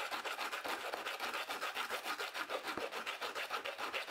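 P100 sandpaper wrapped around an aluminium profile, rasping back and forth inside an opening of a 3D-printed PETG frame to sand the unsupported opening to size: quick, even strokes, several a second.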